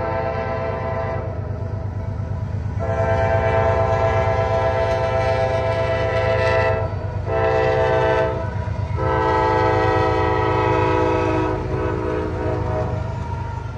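Norfolk Southern freight train's diesel locomotive sounding its chime air horn in the grade-crossing pattern: a long blast that ends about a second in, another long blast, a short one, and a final long one that fades near the end. Under it runs the low, steady rumble of the passing train.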